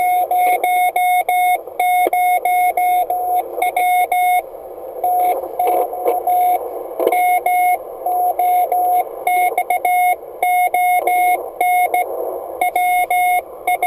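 Morse code (CW) sent as a high beep of about 700 Hz, keyed in quick dots and dashes, through the speaker of an Icom IC-701 HF transceiver. Receiver hiss fills the gaps between characters, and the keying breaks off for a moment about four and a half seconds in.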